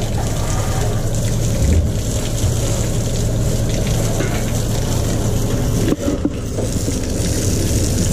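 Water gushing steadily from a boat's deck-wash pump hose as the deck is washed down, over a steady low hum. The owner says the pump is getting blocked.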